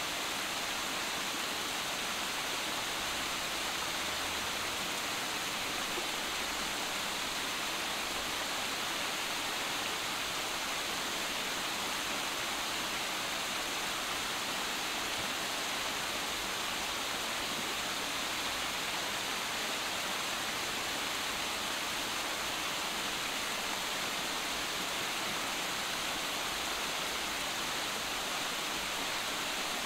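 Small waterfalls cascading over boulders into a rocky stream: a steady, even rush of falling and splashing water.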